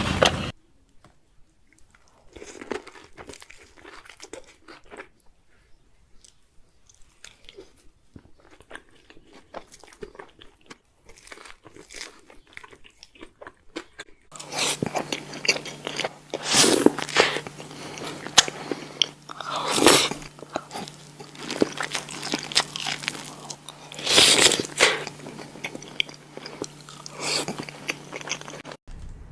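Close-miked biting and chewing of crispy fried chicken: crunchy bites and chewing. Soft and sparse at first, it turns louder about halfway, over a steady low hum, with several loud crunching bites.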